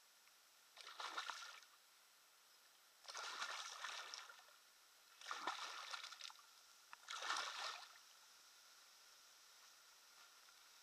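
A hooked pike thrashing at the water's surface beside the bank as it is played in, splashing in four bursts of about a second each.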